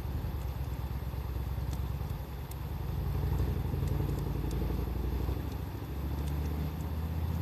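Wood fire crackling with scattered sharp pops, under a low engine rumble from a passing vehicle that grows louder about three seconds in.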